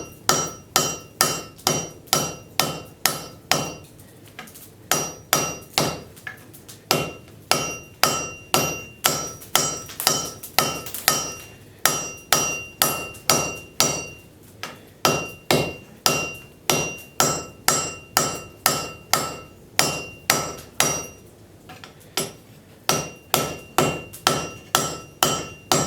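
Hand hammer striking a hot railroad spike on an anvil, working its edges round. Steady blows come about two to three a second, in runs broken by brief pauses, and many of them leave a clear metallic ring.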